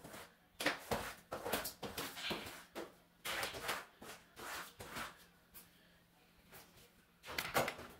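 A floor squeegee pushing water across a wet tiled floor in short, irregular swishing strokes, pausing briefly about six seconds in.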